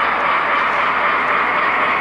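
A model train's running noise picked up by a camera riding on it: wheels rolling on the rails together with the drive mechanism, a steady, even noise with no breaks.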